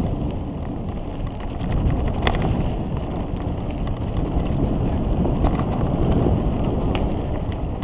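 Mountain bike riding fast down a dirt singletrack: steady wind rush on the camera microphone over the rumble of tyres on loose dirt, with a few sharp rattles from the bike.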